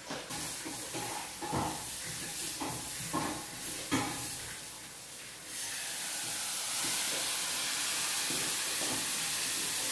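A few utensil knocks against a frying pan, then about five and a half seconds in a steady sizzle starts up as garlic and onion hit hot cooking oil, and it keeps frying to the end.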